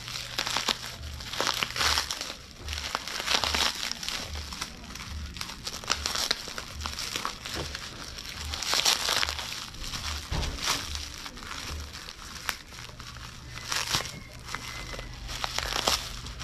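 Plastic bubble wrap crinkling and crackling in irregular bursts as it is handled and unwrapped by hand.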